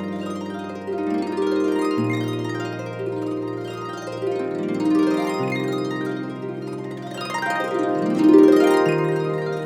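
Background music of plucked-string notes with sweeping upward runs, over held bass notes that change every couple of seconds.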